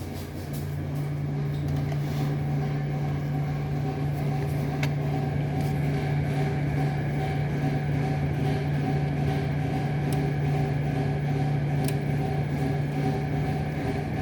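A steady low mechanical hum, like a motor or fan running, with a few faint sharp knocks, one about five seconds in and others near ten and twelve seconds.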